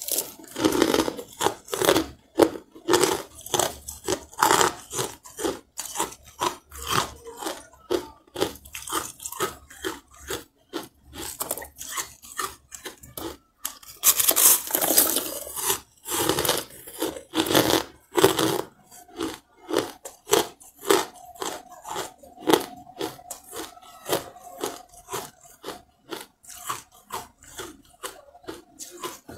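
Carbonated ice being bitten and chewed close to the microphone: crisp crunching strokes, several a second, with big bites at the start and again about halfway through.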